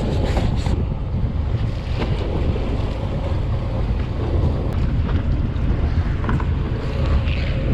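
Steady low rumble of a fishing charter boat's engine, with wind buffeting the microphone.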